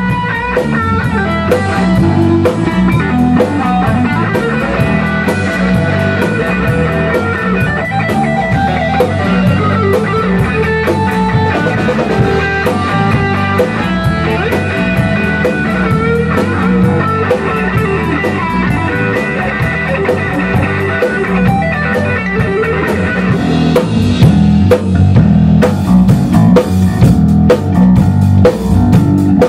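A rock band playing an instrumental passage: electric guitars over a Tama drum kit keeping a steady beat, with no vocals. It gets louder and busier near the end.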